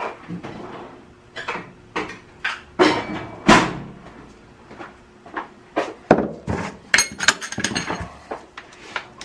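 A run of knocks and clinks as tools and a metal drip pan are handled and set down on a workbench, with a brief metallic ringing about seven seconds in.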